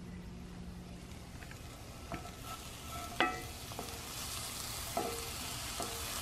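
A seasoned ground-beef patty laid into a preheated cast-iron skillet, the sizzle building from about halfway through. A few light knocks of the wooden spatula on the pan, the sharpest a little after three seconds in.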